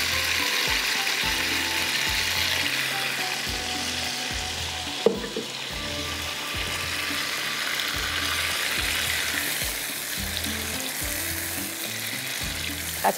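Chicken frying in oil with a chili spice paste, a steady sizzle, with one short knock about five seconds in.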